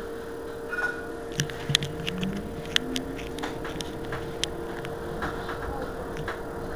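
Irizar ie tram electric bus standing at a stop, giving out a steady electric hum. Scattered sharp clicks come over it, most of them in the first few seconds, and a short rising tone sounds about two seconds in.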